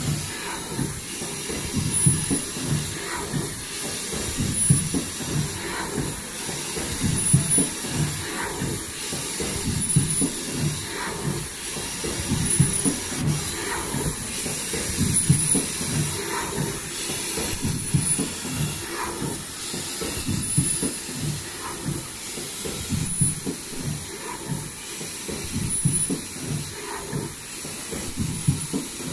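Richpeace automatic folding KN95 mask production line running: a steady mechanical clatter and hiss, with short high-pitched tones and light knocks repeating in a regular cycle about every two seconds as masks are made.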